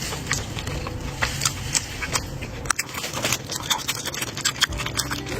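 Close-up eating sounds: a scatter of short clicks and scrapes from utensils picking food out of a takeout container, mixed with chewing of mala xiang guo.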